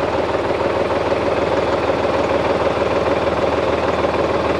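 Solis Yanmar 5015 tractor's diesel engine idling steadily at low revs, freshly started with the key, its firing strokes an even, rapid pulse.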